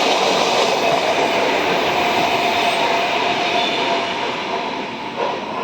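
Train running on the rails: loud steady rolling noise of wheels on track with a faint squeal, fading away over the last second or so.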